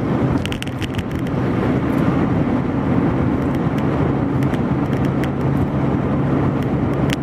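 Car engine and road noise heard from inside the cabin while driving: a steady low hum under a constant rush, with a few short clicks about a second in and again near the end.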